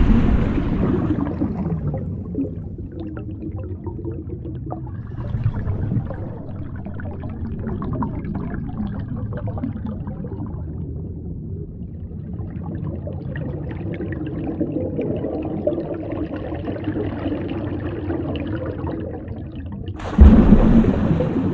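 Muffled water noise and low rumble as picked up by a camera underwater, with a sudden louder surge near the end.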